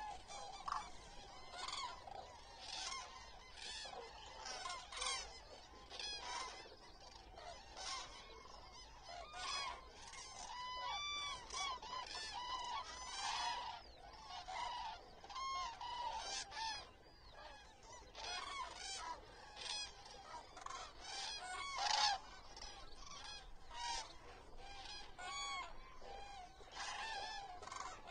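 A large flock of common cranes calling, with many overlapping trumpeting calls throughout and a louder burst about 22 seconds in.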